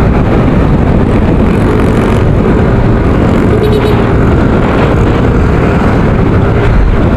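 Loud, steady wind buffeting and motorcycle engine noise while riding, picked up by an SJCAM 5000X action camera's built-in microphone, its external mic unplugged.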